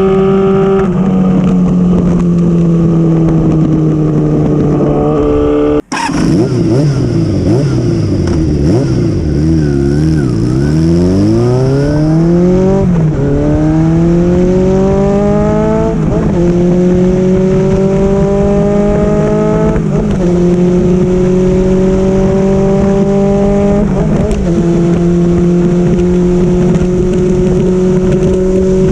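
Kawasaki GPZ400F inline-four running through a MISTY-style straight-pipe exhaust with a silencer. It holds a steady note, cuts out abruptly about six seconds in, then drops in pitch and pulls through the gears, rising in pitch with an upshift roughly every four seconds.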